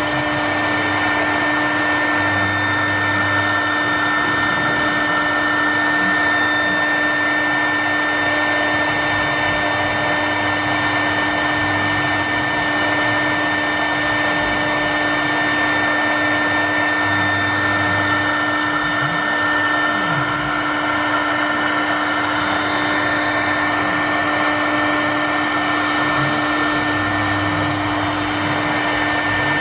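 CNC router spindle running at speed with a steady high whine while its bit engraves a wooden board, with lower tones that come and go and glide up and down in pitch as the head moves along the cut.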